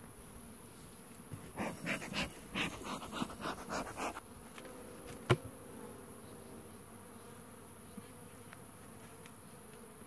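Honey bees buzzing around open-fronted hive boxes, a faint steady hum. Irregular rustling of handling comes in the first few seconds, then a single sharp crack about five seconds in as the hive tool breaks the outer cover loose.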